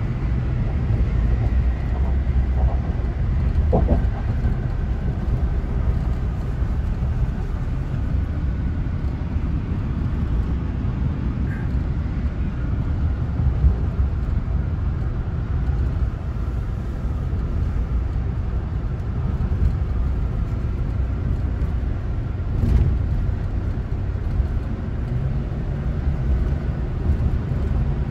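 Ford F-150 pickup driving on the highway towing a large trailer: a steady low rumble of engine and road noise.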